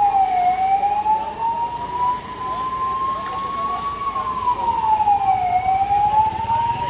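A siren wailing in slow cycles: its pitch drops quickly, then climbs slowly back up, twice over.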